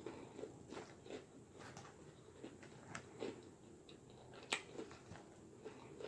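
Quiet chewing of salad, with a fork clicking and scraping in a clear plastic salad bowl as more is picked up; one sharper click about four and a half seconds in.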